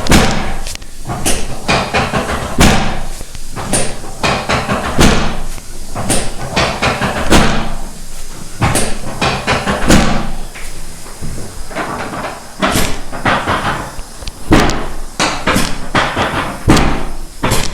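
Repeated sharp thuds, about one a second, of chiropractic thrusts on the lower back and pelvis of a patient lying face down on an adjusting table.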